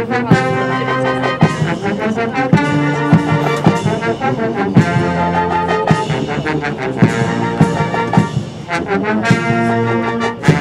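Military brass band playing a march, with held brass chords over a steady drum beat.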